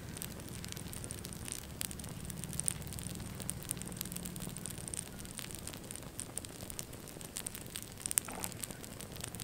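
Fire burning on a model toy car: flames crackling with scattered sharp pops over a low steady rush. The loudest pop comes about eight seconds in.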